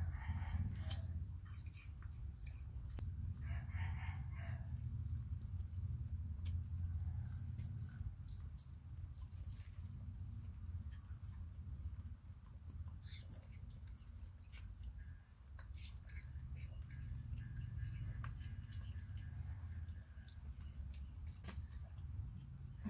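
Room ambience with a steady low hum, under a thin, high, steady tone that starts about three seconds in and holds. There are two short calls, one at the start and one about four seconds in, and scattered light clicks and taps.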